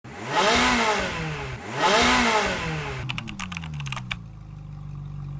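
Intro sound effects: an engine revved up and back down twice, then a quick run of computer keyboard typing clicks, then a steady low engine-like hum.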